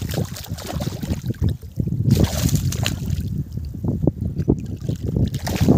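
Small waves lapping and sloshing in the shallows, with wind rumbling on the phone's microphone and a stronger gust of noise about two seconds in.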